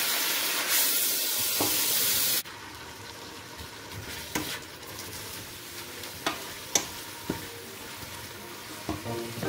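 Fresh spinach and greens sizzling as they sauté in olive oil in a stainless steel pot, stirred with a wooden spatula. The loud sizzle drops off suddenly about two and a half seconds in to a quieter one, with the spatula knocking against the pot a few times.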